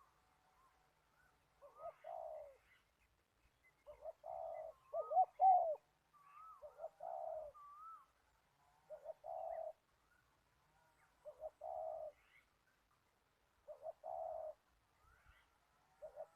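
A dove cooing in short phrases repeated about every two seconds, with thin whistled chirps of another bird now and then.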